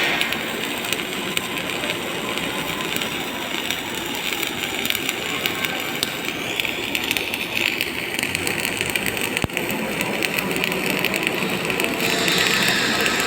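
MIG welding arc running with a steady, dense crackle, and one sharp click about nine and a half seconds in.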